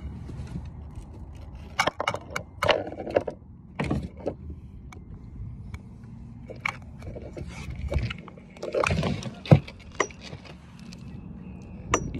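Close rubbing and handling noise of clothing against the microphone, with scattered sharp clicks and knocks, while a fishing reel is wound in to land a carp. The loudest knocks come a couple of seconds in and again near the end.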